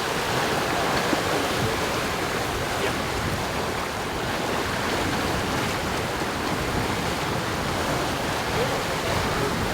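Steady rush of water and wind aboard a sailing yacht under way, the hull moving through the sea.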